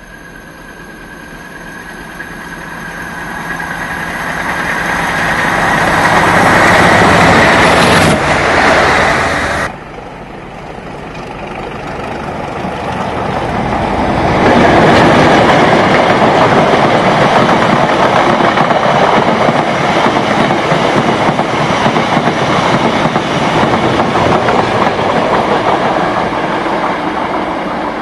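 A British Rail diesel locomotive approaching and passing close, its engine growing steadily louder to a peak, cut off abruptly about ten seconds in. Then a long train rolling past, the rumble and clatter of its wheels on the rails building up and staying loud and steady.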